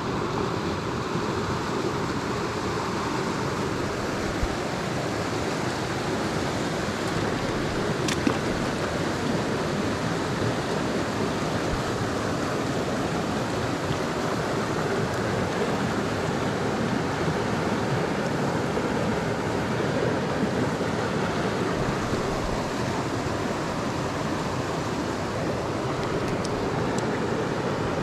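Mountain stream rushing over rocks: a steady wash of flowing water, with one brief click about eight seconds in.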